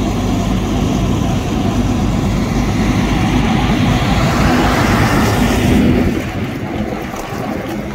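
A heavy truck drives past close by, its engine and tyre noise swelling to a peak about five to six seconds in, then dropping away. Under it, a diesel truck engine idles steadily.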